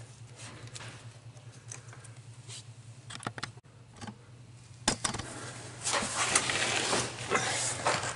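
Faint clicks and rattles of hands handling tools and parts, then a sharp click about five seconds in and louder clattering and scraping of workshop handling noise, over a steady low hum.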